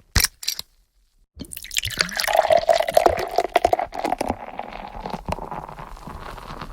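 Two short clicks as a bottle is opened, then liquid pouring into a container for several seconds, its gurgling tone rising slowly as it fills before tapering off.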